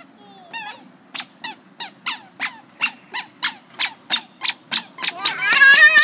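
A toddler's squeaky shoes chirping with each step, short high squeaks about three a second as she walks. Near the end comes a longer, louder squeal that rises at its start.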